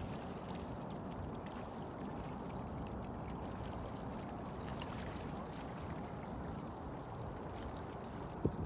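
Steady low rushing noise of wind buffeting the microphone, with a short thump near the end.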